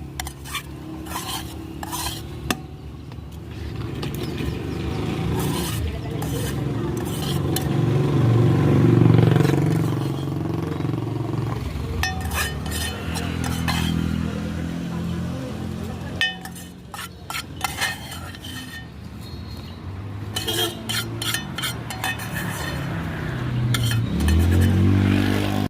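A spoon stirring and clinking in a bowl as boiled corn is mixed with masala and black salt, with many short clinks throughout over a low motor hum that rises and falls.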